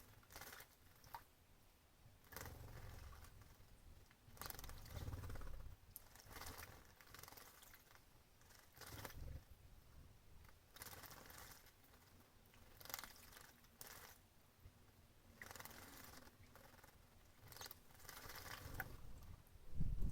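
Small birds bathing, with faint, irregular splashes and wing flutters in shallow water.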